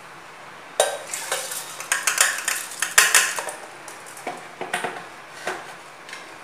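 Stainless-steel mixer-grinder jar clinking and rattling as it is handled and set on its base: a quick run of sharp metal knocks and clatters, busiest in the first few seconds, then thinning out.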